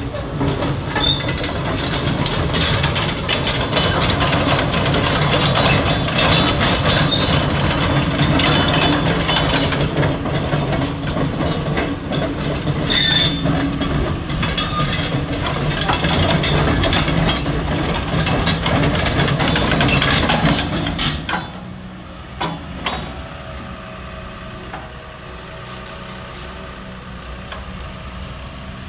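Caterpillar 320E L tracked excavator travelling on its steel tracks over concrete: the track links clatter over the running diesel engine. About twenty seconds in it stops, and the engine idles more quietly and evenly.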